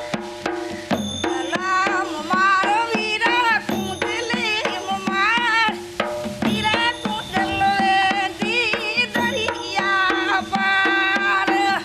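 Folk song: a woman sings a melody with strong vibrato over a steady drum beat and held drone notes.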